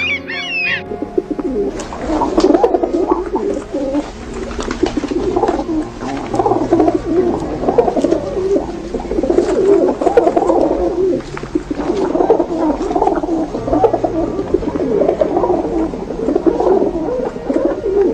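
A flock of birds calling: many low, wavering calls overlapping continuously.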